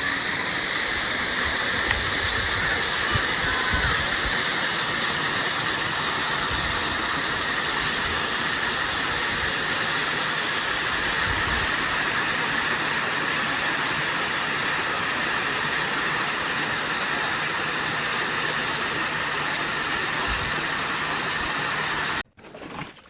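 Giraffe Tools G30 electric pressure washer running and spraying: a steady, loud hiss of the water jet with a steady low hum underneath, cutting off suddenly near the end.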